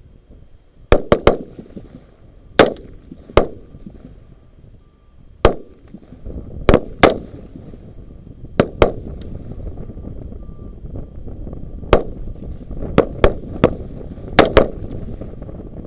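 Rifle shots on a firing line fired at the shooters' own pace: about fifteen sharp cracks at uneven intervals, some in quick pairs.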